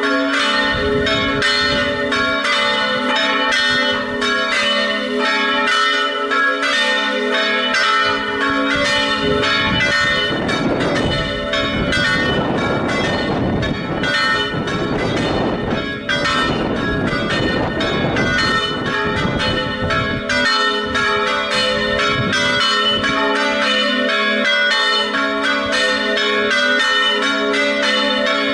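Festive peal of three church bells tuned to A, B and C-sharp, struck in quick succession with their tones overlapping and ringing on continuously.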